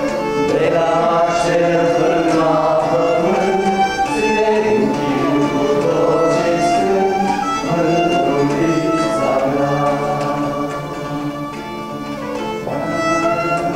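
Music with violin and bowed strings, played at an even, fairly loud level.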